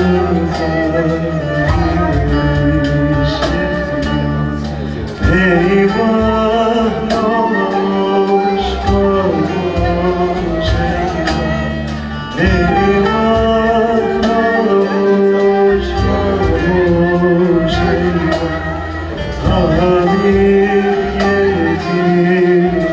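Live Turkish folk song (türkü): a male voice sings over a small band of bowed spike fiddle, end-blown flute and electric bass. The music goes on in phrases, with short dips in level about five, twelve and nineteen seconds in.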